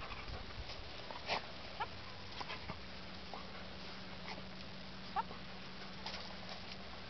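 A dog whimpering in a few short, rising squeaks, with brief rustles in between.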